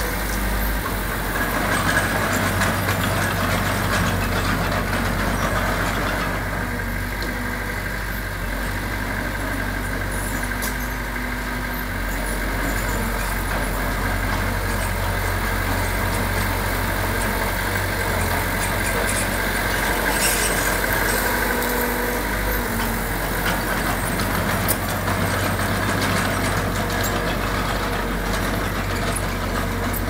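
Heavy-equipment diesel engine running steadily, with a low, even hum.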